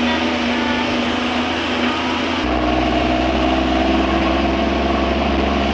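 Steady drone of a moving vehicle heard from inside the cabin, engine and road noise with a constant hum. The pitch of the hum changes abruptly about two and a half seconds in.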